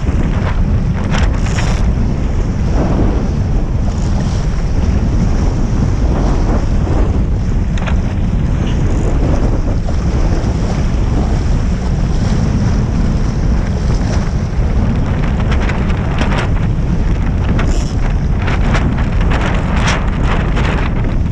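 Strong wind buffeting the microphone in a steady low rumble, over water rushing and slapping against the hull of a Topper Topaz sailing dinghy under way, with short splashes now and then, several close together near the end.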